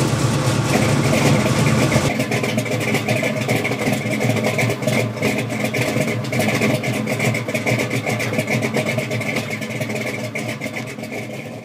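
1970 Chevelle's 468 big-block V8 running at idle. About two seconds in the deep low end drops away and a steadier, raspier engine sound carries on, fading out at the very end.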